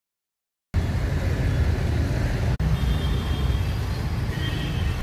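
Digital silence for under a second, then a steady low rumbling background noise, broken by a brief dropout about two and a half seconds in.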